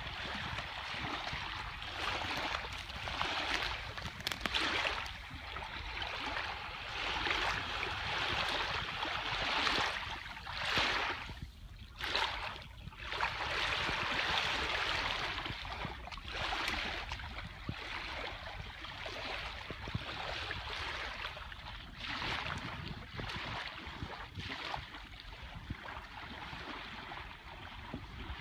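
Small waves lapping and splashing against the shoreline, swelling and ebbing in uneven surges every second or two.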